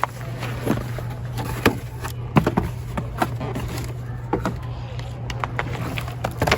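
Scattered knocks, taps and scuffs of a person putting on hiking shoes, over a steady low hum.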